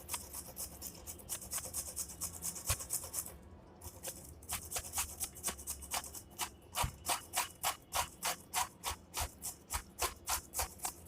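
Peeled fresh ginger being rubbed up and down a kitchen grater, a steady rasping stroke about three or four times a second, with a short pause about three and a half seconds in.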